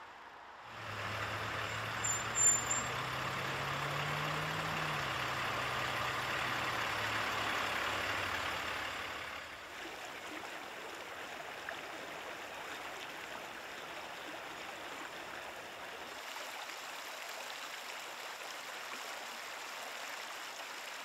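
A stream flowing while a motor vehicle passes: its engine hum rises slightly and then fades out about nine seconds in, with a brief high squeak about two and a half seconds in. After that only the steady rush of the stream is left.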